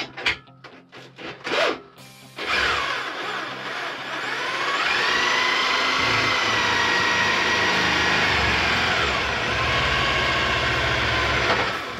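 Cordless drill running under load: its motor whine climbs in pitch a couple of seconds in, holds steady, then falls back and stops near the end. A few short knocks come before it starts.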